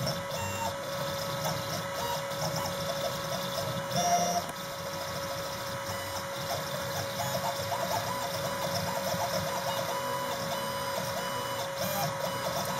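Desktop CNC engraving machine running a job: its stepper motors whine in short tones that keep changing pitch as the axes start, stop and change speed, over a steady whine. One brief louder sound comes about four seconds in.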